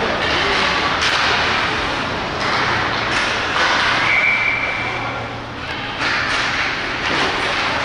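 Ice hockey skate blades scraping and cutting the ice in repeated swishes, with a few sharp cracks of sticks and puck.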